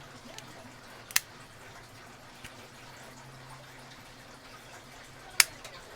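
Parts of a universal lock holder clicking as a tubular lock insert is fitted and locked into place: two sharp clicks, one about a second in and one near the end, with a few fainter handling ticks.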